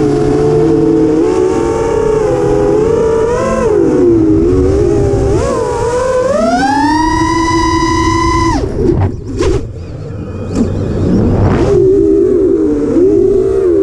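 A drone's electric motors and propellers whine, the pitch rising and falling as the throttle changes. About six seconds in, the whine climbs to a steady high tone, then cuts off suddenly. There are a few seconds of short gusts and clicks, and the whine picks up again near the end.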